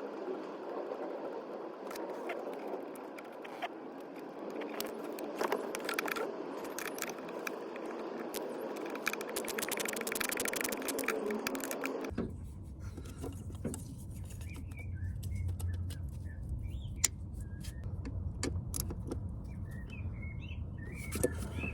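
Rustling and clicking handling noise, then a sudden change about halfway through to the Vauxhall Astra's 1.7 CDTI diesel engine idling with a steady low hum. The engine is running on a newly fitted genuine Denso suction control valve, which was meant to cure its hunting idle. Birds chirp faintly over the idle.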